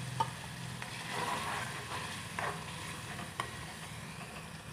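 Thin gravy sizzling in an aluminium kadhai over a gas flame, just after a splash of water has been added, while a steel spoon stirs it. The spoon clicks against the pan three times.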